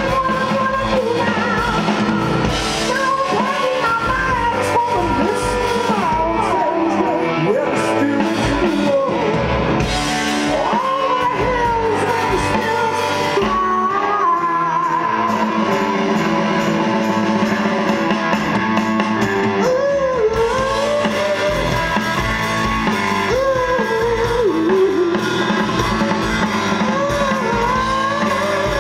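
Live rock band playing: a lead singer singing over electric guitar and a drum kit, loud and continuous throughout.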